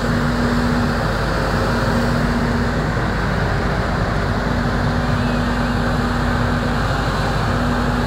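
Volvo crawler excavator's diesel engine running steadily at work, with a steady hum that drops out briefly about seven seconds in.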